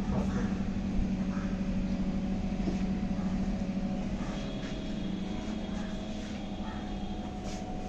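Steady low machine hum with a few fixed tones in it, joined about four seconds in by a faint high whine, and a single small click about a second in.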